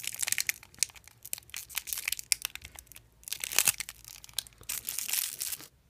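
Packaging being crinkled and torn open by hand, in a run of irregular crackles. It goes quieter for a moment about halfway, gets louder just after, and stops shortly before the end.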